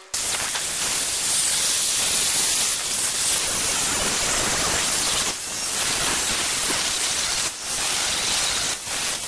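Electric angle grinder with an abrasive disc grinding the edge of a steel piece clamped in a vise: a loud, steady, hissing grind that starts abruptly and eases off briefly a few times as the disc is lifted and reset.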